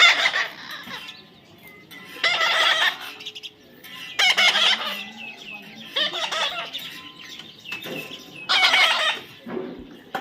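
A parrot calling: four harsh squawks, each under a second long, about two seconds apart.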